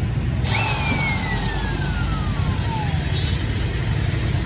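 Steady low rumble of vehicle traffic. About half a second in, a high whine starts abruptly and glides steadily down in pitch, dying away about three seconds in.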